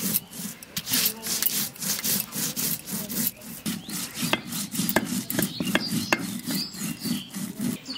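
Stone roller worked back and forth on a flat stone grinding slab (sil-batta), crushing dried red chillies and cumin seeds. It makes a gritty stone-on-stone scraping in quick repeated strokes, with a few sharper clicks in the second half.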